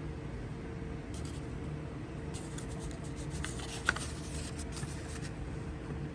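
Paper rustling and crinkling in short spells, with one sharper click about four seconds in, over a steady low background hum.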